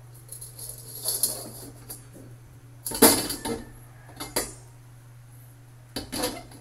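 Carbon steel wok knocking and scraping against the gas stove's burner grate as it is shifted and set down: a series of metal clanks, the loudest about three seconds in.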